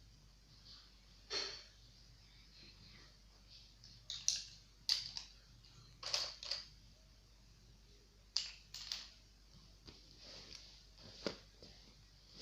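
Faint, scattered clicks and handling sounds, about eight short ones, as glue is squeezed from its bottle into a bowl for slime.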